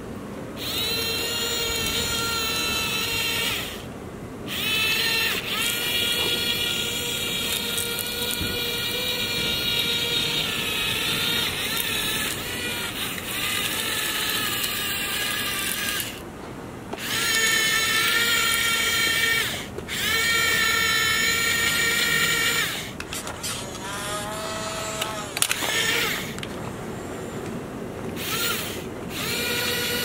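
Toy remote-control excavator's small electric motors and gears whining as it drives its tracks and moves its arm. The whine comes in spells of a few seconds with short breaks, its pitch rising as each spell starts.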